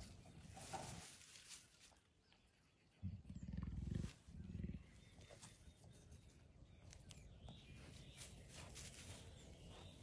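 Jaguar growling: a deep, pulsing growl about three seconds in, lasting about a second, then a shorter one right after, as part of rough courtship between a black and a spotted jaguar.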